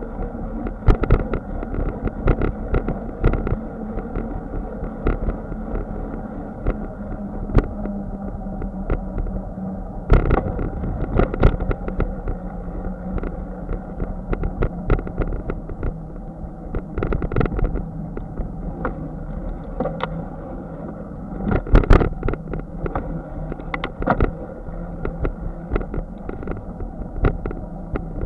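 Bicycle rolling over a concrete sidewalk: steady tyre rumble and wind noise, broken by frequent short knocks and rattles as the bike crosses the sidewalk's joints and bumps.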